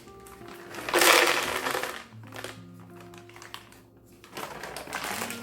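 Chocolate chips poured from a bag into a storage container, a rattling rush lasting about a second starting about a second in, over soft background music with sustained notes.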